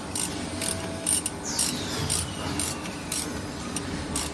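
Ratchet wrench clicking in short repeated strokes, about two a second, as bolts on a spring machine's wire-feed roller assembly are tightened.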